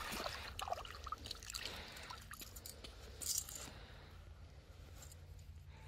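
Splashing in shallow water as a landed splittail is lifted out by hand, mostly in the first second, then quieter handling sounds with one brief louder rustle a little over three seconds in. A low steady rumble lies underneath.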